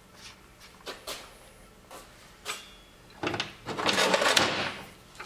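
Plastic track drive cog being worked onto the splined shaft of a snowblower's track drive by hand: a few light clicks, then a loud scraping rattle of plastic on metal lasting about a second and a half, a little past halfway.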